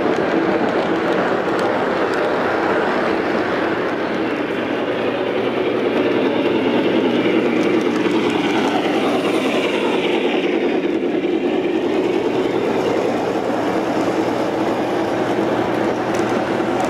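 Lionel O-gauge model trains running on three-rail track: a steady rumble of metal wheels rolling on the rails. Partway through, the tone sweeps down and back up as cars pass close by.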